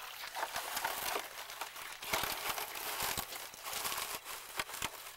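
Dry marsh grass and reeds rustling and crackling in a dense run of small clicks, with a few low thumps in the second half.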